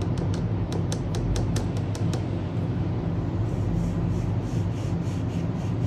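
A steady low hum runs throughout. Over it, during the first two seconds, come quick light clicks of a paintbrush working watercolour paint in a ceramic palette well. Softer brushing follows as the brush lays paint onto watercolour paper.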